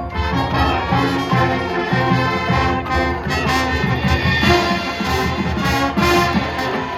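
High school marching band playing loudly: sustained brass chords over drum hits.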